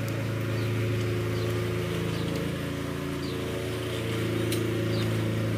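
A steady low droning hum made of several fixed tones, machine-like, with faint short high chirps repeating about once a second above it.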